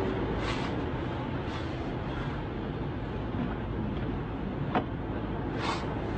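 Steady road noise inside a moving car's cabin, with a few short breathy sobs from a man weeping and a single sharp click late on.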